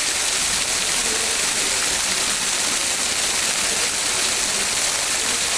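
Steady rain: an even, unbroken hiss of falling water.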